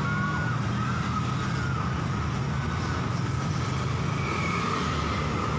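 Bus telolet horns heard from afar, musical multi-tone air horns changing pitch in short steps in the first two seconds and then holding a steadier tone, over a steady low rumble of road traffic.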